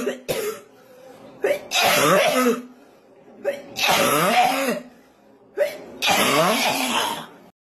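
A voice lets out three long, breathy cries about two seconds apart, each starting sharply and sliding up and down in pitch.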